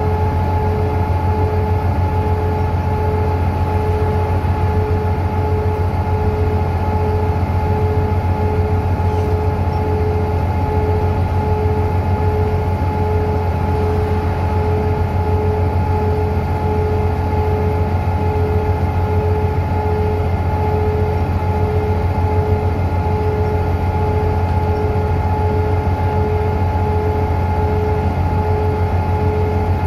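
Inside a DAF DB250 double-decker bus running at a steady speed: a low engine and road drone with a steady axle whine over it, which holds the same pitch throughout.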